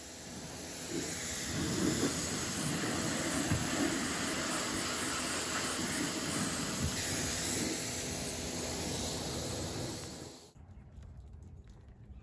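Pressure washer spraying water against a pickup truck's body panels: a steady hiss that stops abruptly about ten and a half seconds in, leaving a much quieter background with faint ticks.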